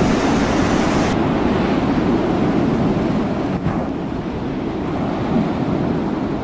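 A loud, even rushing noise cuts off abruptly about a second in, giving way to wind buffeting the microphone over the sound of the open sea and waves.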